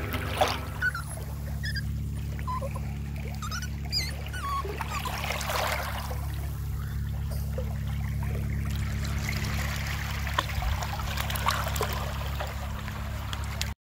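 Shallow seawater splashing and trickling as a small curly-coated dog wades through it, over a steady low hum; the sound cuts off suddenly just before the end.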